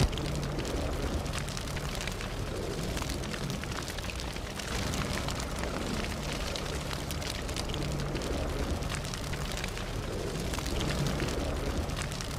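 Fire sound effect: a steady rumbling hiss with scattered crackles, opening with one brief sharp click.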